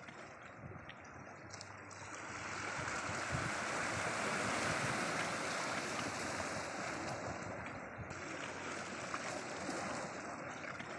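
Sea surf rushing, swelling into a long surge about two seconds in and easing off toward the end.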